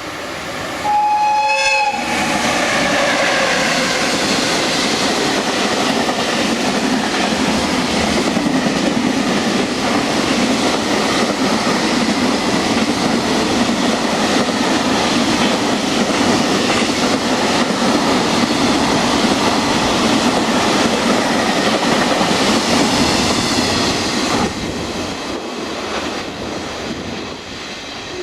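EF66 electric locomotive sounds one short horn blast about a second in: a courtesy whistle from the driver. The freight train then passes at speed, with its wheels clattering over the rails, for about twenty seconds until the last wagon goes by and the noise drops suddenly.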